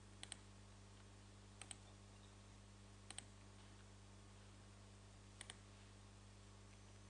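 Faint clicking of a computer mouse: four quick double clicks spread a second or two apart, over a low steady electrical hum.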